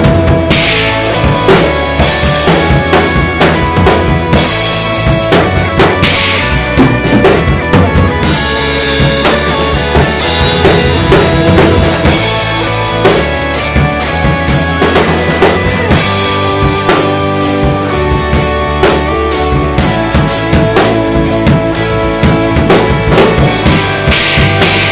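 Acoustic drum kit played hard along to a backing track: snare, toms and bass drum hits with repeated cymbal crashes over the track's pitched instruments.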